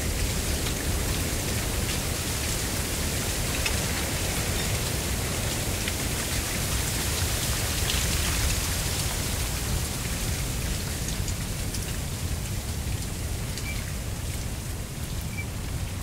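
Mistral wind blowing through a stand of dry giant reed (Canne de Provence, Arundo donax): a steady rustle and hiss of the dry leaves and canes over a low rumble, with a few faint ticks. It swells about halfway through and eases a little near the end.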